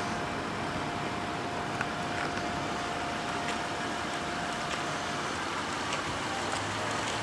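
Steady outdoor background hiss with a faint steady tone that fades about five seconds in, and a few faint ticks.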